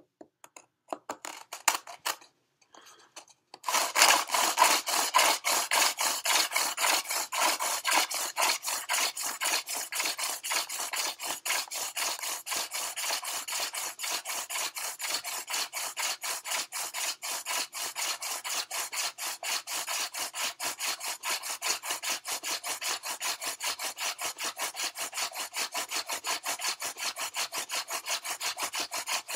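Hand drill friction fire: a goldenrod spindle spun back and forth between the palms, grinding into the notch of a western red cedar hearth board in a fast rhythmic wood-on-wood rubbing. It starts about four seconds in after a few light taps, is loudest at first and then settles a little, as the drilling grinds out the dark char dust that builds an ember.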